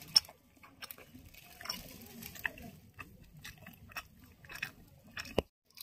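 A person chewing a mouthful of luchi and soybean curry, quiet, with soft irregular mouth clicks and smacks and a sharper click near the end.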